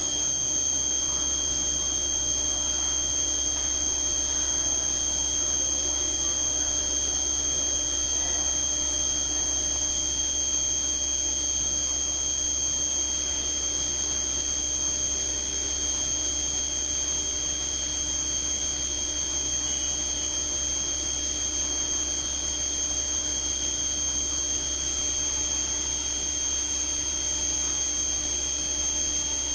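CNC vertical milling machine's spindle running at a steady high speed while the end mill cuts the workpiece: an even, high-pitched whine with an overtone above it over a low hum.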